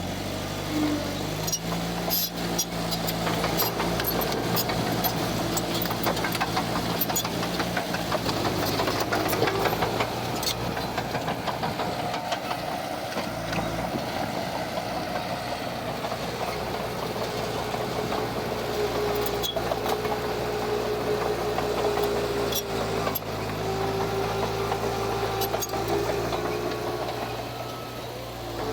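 Heavy diesel construction machine running steadily, its engine note shifting a few times, with scattered sharp clanks and rattles from metal and rock.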